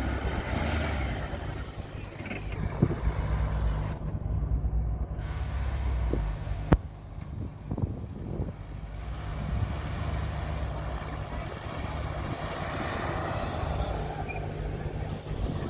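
An SUV engine running steadily at low revs, a low hum under a rushing haze, with a single sharp click about seven seconds in.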